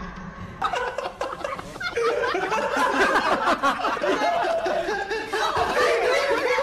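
A woman speaking Chinese, mixed with snickering laughter; the sound cuts off abruptly at the end.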